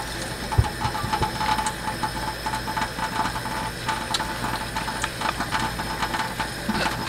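Water running from a kitchen tap into a stainless steel sink while soapy hands rub and lather under the stream: a steady splashing hiss with many small wet clicks.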